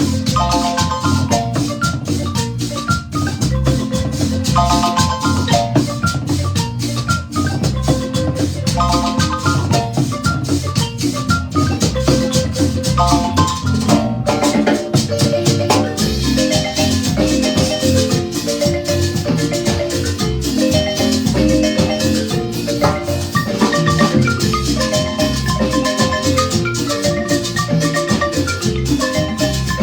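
Live marimba music: a marimba ensemble playing an upbeat dance piece, with rapid repeated mallet notes over a steady bass line and a rattle or shaker keeping time.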